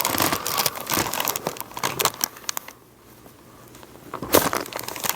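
Crinkling and rustling on the treatment table as the patient is worked on, then a single sharp crack about four seconds in: a chiropractic first-rib adjustment being thrust on the exhale.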